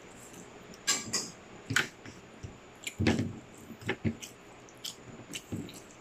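Close-up chewing of a mouthful of tutong, the crisp burnt rice crust from the bottom of the pot, with kare-kare: short, irregular crunching and wet smacking sounds.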